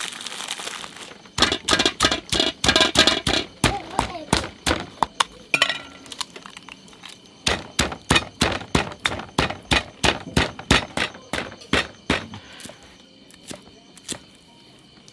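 Stone pestle pounding in a stone mortar, crushing roasted chilies and other dip ingredients: sharp knocks about three to four a second, with a short pause around the middle. Near the end the strokes give way to softer knife chops on a wooden cutting board.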